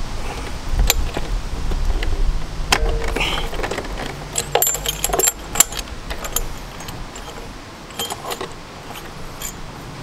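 Metal clinks and rattles of a tube-style spark plug wrench and its bar being worked to loosen the spark plug of a 50cc scooter. Scattered sharp clinks, the loudest about five and a half seconds in.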